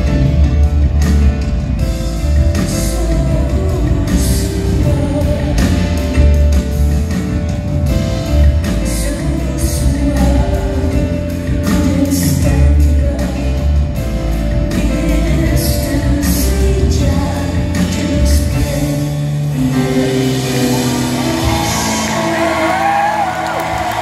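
Live band music: grand piano, drums with cymbal crashes and a heavy bass line, with a woman singing. About twenty seconds in the music thins out and the audience begins cheering and whooping.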